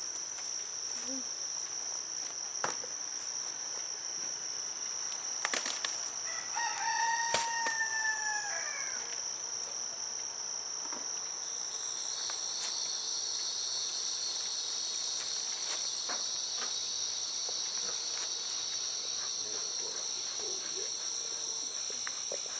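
A steady high-pitched insect drone, growing fuller about halfway through, with a rooster crowing once about seven seconds in and a few light clicks.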